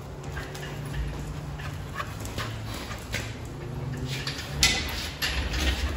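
Dog whining, with scattered clicks and shuffling steps and one sharp knock about four and a half seconds in.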